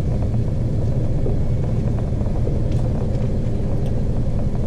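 Fishing boat's engine running steadily, a low drone heard from inside the wheelhouse.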